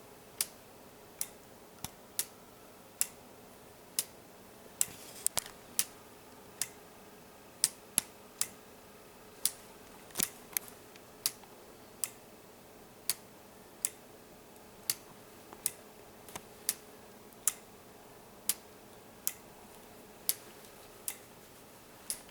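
Escapement of a homemade weight-driven grandfather clock ticking: sharp clicks a little faster than one a second, not quite evenly spaced, as the escapement blades strike alternate sides to keep the pendulum rocking.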